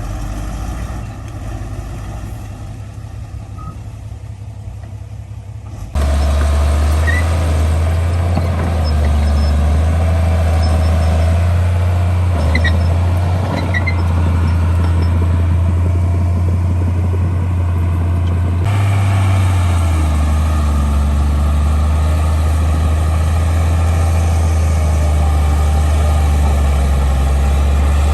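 Heavy diesel earthmoving machinery (bulldozer and dump trucks) running with a steady deep engine drone. The sound jumps suddenly louder about six seconds in and shifts again about two-thirds of the way through.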